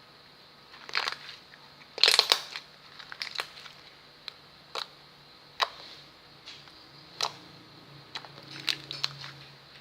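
Slime being squeezed by hand, giving irregular sharp pops and crackles as trapped air bubbles burst, with the loudest cluster about two seconds in.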